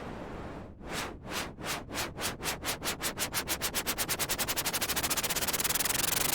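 Synthesized white noise, chopped into rhythmic pulses like a train's chugging. After a brief steady hiss, the pulses start about a second in at around three a second and speed up steadily into a fast flutter that nearly merges into continuous hiss near the end, like a train gathering speed.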